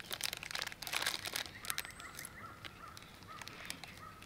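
A small clear plastic bag of mounting hardware crinkles as it is handled. A bird calls faintly in the background, in a quick run of short repeated chirps through the second half.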